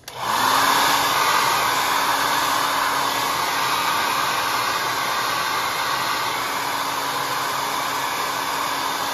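Handheld hair dryer switched on and blowing steadily: an even rush of air over a steady motor hum.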